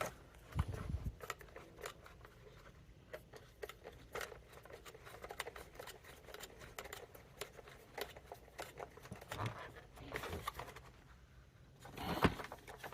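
Plastic parts of a Dyson vacuum cleaner head being handled and fitted together by hand: scattered light clicks, taps and rattles, with a few heavier knocks near the end.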